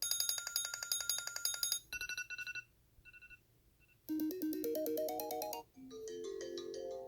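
Apple iPhone ringtones and alert tones played one after another. A fast, high repeating electronic tone pattern gives way to a short few-note alert, then a near-silent pause, then a short melodic ringtone climbing in pitch note by note, and another tune from about six seconds in.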